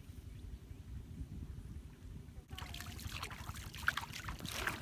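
A low rumble, then from about halfway on, water splashing and trickling in quick irregular bursts as a person stands in shallow floodwater, working a white bag through the water.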